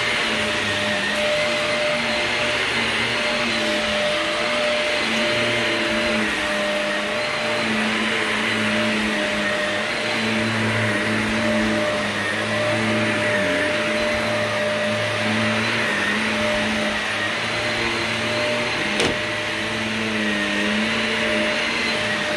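Vacuum cleaner running steadily over carpet during a pre-vacuum before carpet cleaning. Its motor whine dips and rises slightly in pitch as it is worked back and forth. There is one sharp click about 19 seconds in.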